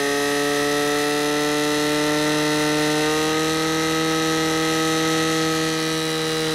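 Portable fire pump engine running at high, steady revs under load, driving water through charged hoses to the jets. Its pitch creeps up slightly.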